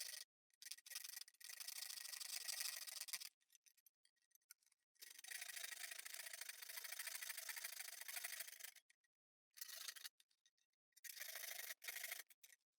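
Hard plastic pickup riser being scraped or trimmed by hand, a dry rubbing rasp. It comes in several strokes of one to four seconds, each stopping dead between them.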